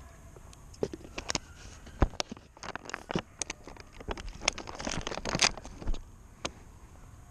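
Irregular crackling and clicking from fingers handling a small plastic object right against the microphone, starting about a second in and dying away near the end.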